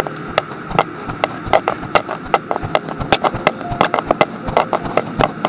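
Footsteps going down a flight of stairs: short, sharp steps at an even pace of about three a second.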